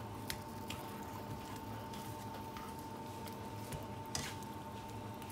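Fish cakes frying gently in a little oil in a nonstick pan, a soft steady sizzle under a constant high whine. A few light clicks of a metal spatula against the pan near the start and about four seconds in.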